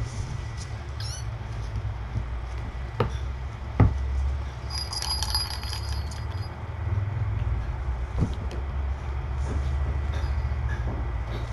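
Kittens wrestling and playing on carpet: two soft knocks about three to four seconds in, then a brief faint tinkling about five seconds in, over a steady low hum.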